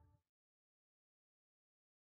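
Near silence: the faint last tail of a fading music sting dies away at the very start, then complete digital silence.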